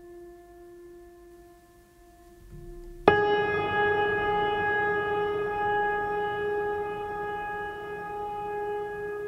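Background music of long held, drone-like wind-instrument tones. About three seconds in a new, louder note enters suddenly and then slowly fades.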